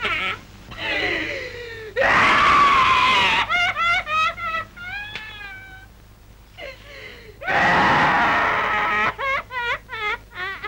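A woman wailing and sobbing theatrically in long, trembling howls, with two loud shrill crying bursts about two seconds and seven and a half seconds in.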